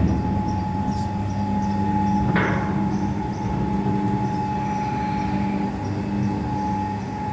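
Ribbon blender's 3 HP Crompton Greaves electric motor and gearbox running, a steady hum with a constant whine above it. A knock right at the start and a brief clattering strike about two and a half seconds in.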